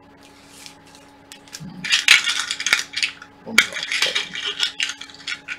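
Small steel M5 screws clinking and rattling as they are dropped by hand into a small plastic box: a run of sharp metallic clicks, loudest in two clusters about two seconds in and about three and a half seconds in.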